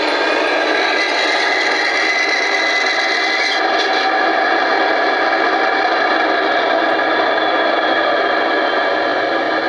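KISS model of a Rhaetian Railway Ge 6/6 electric locomotive running, its ESU sound decoder playing a steady electric-locomotive running sound through the model's speaker.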